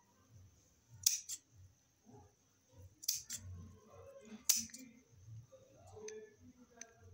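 Large steel scissors snipping cloth: four sharp snips, one about a second in, two close together around three seconds, and the loudest at about four and a half seconds, with soft cloth handling between.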